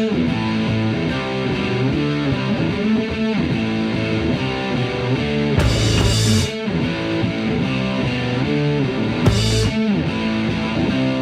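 Rock background music led by electric guitar, with short bright cymbal-like hits about six and nine and a half seconds in.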